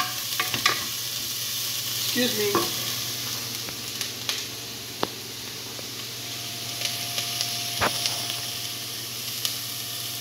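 Chopped onion, garlic and carrot sizzling in olive oil in a nonstick pot, a steady frying hiss, while a wooden spoon stirs them and knocks against the pot now and then.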